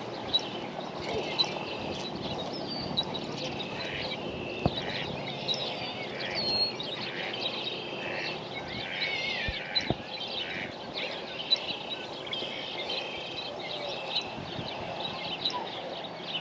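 Birds chirping and twittering almost continuously, many short high calls and trills over a steady outdoor background noise, with a few sharp clicks.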